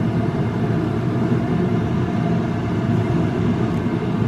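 Steady low engine rumble at an even level, with no change or break.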